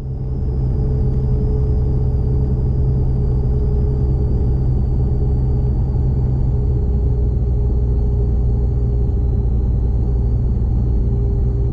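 Cabin noise of a Cirrus SR22 rolling along the runway: the steady drone of its six-cylinder piston engine and propeller, with a faint high whine that drifts slightly down in pitch. It fades in over the first second.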